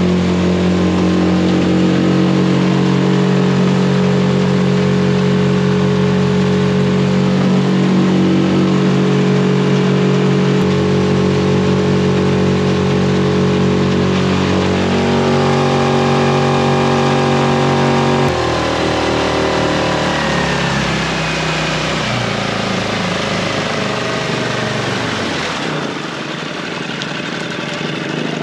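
Outboard motor on a small aluminium tinny running at steady throttle. Its note drops about two-thirds of the way through as the boat is throttled back, and it eases further near the end.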